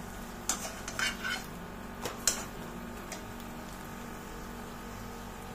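Metal spatula clinking and scraping against a kadai, about five sharp knocks in the first two and a half seconds, as a potato pancake cooked on both sides in ghee is worked loose. Underneath, a steady faint sizzle of the ghee frying.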